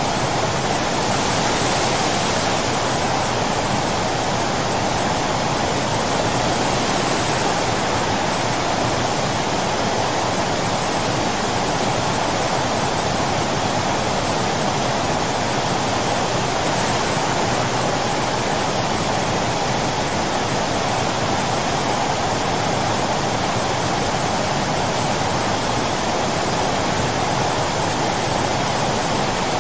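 Torrent of muddy floodwater rushing past close by: a steady, unbroken rush of water.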